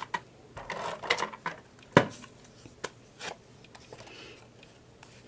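Objects being picked up and set down on a craft tabletop while searching: light rustles and clicks, with one sharp knock about two seconds in.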